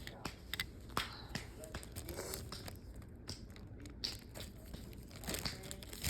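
Scattered small clicks and taps from things being handled at close range, with faint voices now and then.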